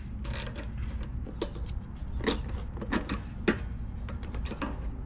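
Scattered light clicks and knocks as the black plastic air filter housing is unbolted and lifted off a DuroMax 208cc engine, over a steady low background rumble.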